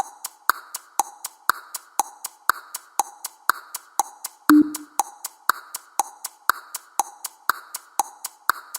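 Countdown timer sound effect: an even clock-like ticking at about two ticks a second, with one short low tone about four and a half seconds in.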